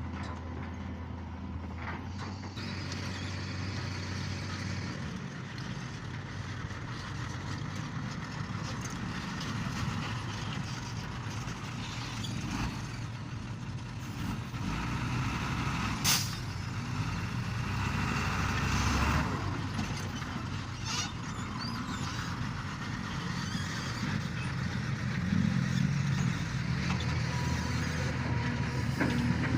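Heavy diesel machinery running steadily while an excavator loads a dump truck, with scattered knocks. About halfway through comes a brief, sharp hiss like a truck's air-brake release.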